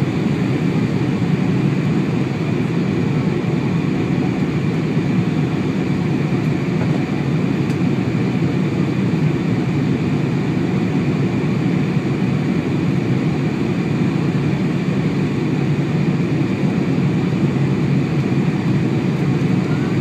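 Boeing 747 cabin noise on approach: a steady, even rush of engine and airflow noise heard from a seat by the wing, low and unbroken, with no distinct events.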